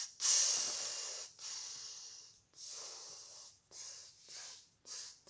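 A person breathing noisily close to the microphone: a string of hissing breaths, the longest and loudest about a second long near the start, then shorter ones.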